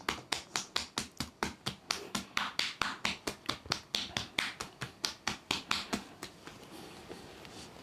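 Rapid, even tapping of a hand on a person's body, about five strikes a second, weakening and stopping about six seconds in.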